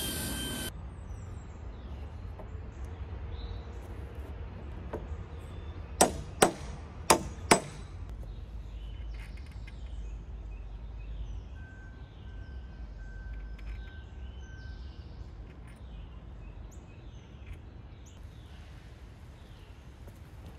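A cordless drill boring through pressure-treated lumber runs briefly and stops. A few seconds later come four sharp hammer strikes in two quick pairs, tapping carriage bolts home through the drilled holes.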